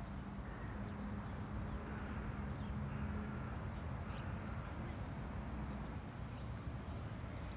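Outdoor park ambience: a steady low hum with a few faint bird chirps.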